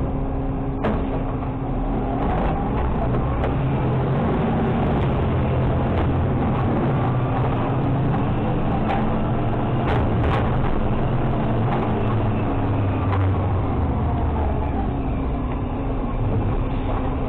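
Automated side loader garbage truck running steadily while its hydraulic packer pushes trash out of the hopper into the body, with a few sharp knocks and rattles about a second in and again around six and ten seconds.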